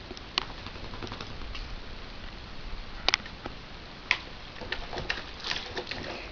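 A dog playing with a water bucket: scattered sharp knocks and clicks, a few single ones early and more frequent clattering in the second half.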